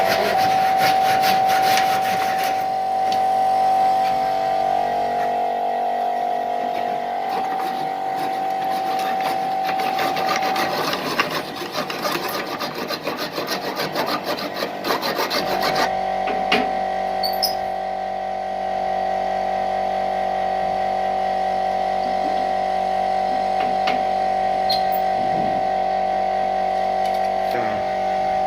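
A power tool's motor runs with a steady tone while it rasps rapidly against teak wood, removing the damaged part of the door. About halfway through the rasping stops and the motor runs on steadily.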